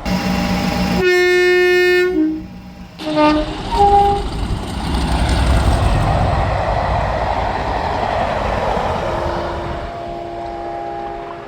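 Train horns: a loud blast that drops to a lower note about two seconds in, a few short toots, then the rumble of a passing train and a steadier horn note near the end.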